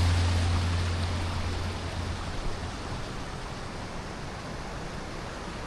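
Steady rush of mountain water, a stream or waterfall. The last low note of a song fades out over the first couple of seconds.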